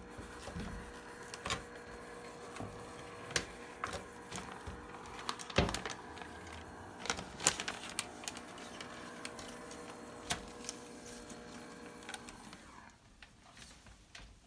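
A handheld garment steamer hums steadily while the contact paper crackles and rustles in scattered sharp clicks as it peels away from the window glass, its adhesive softened by the steam. The hum stops about 13 seconds in.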